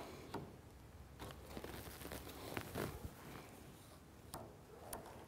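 Faint, scattered clicks and short scrapes of hand tools on metal: a long screwdriver being fitted to and turning a screw in a cast-bronze traveler end fitting.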